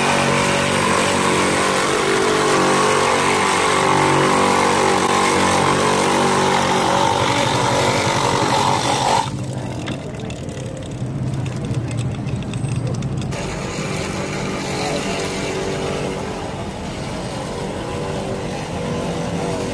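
Electric ice crusher running and shaving ice: a loud, steady grinding over a motor hum. About nine seconds in the grinding stops suddenly, leaving a quieter hum.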